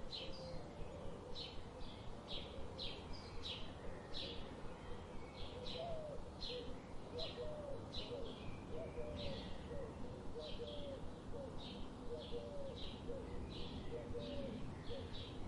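Birds singing: one bird repeats short high chirps at about two a second, steadily throughout. Fainter, lower warbling notes from another bird join about five seconds in.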